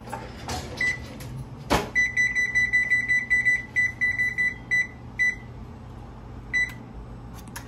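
A high electronic beeper sounding: one short beep about a second in, then a rapid string of beeps lasting nearly three seconds, and two more short beeps later. A single sharp knock comes just before the string.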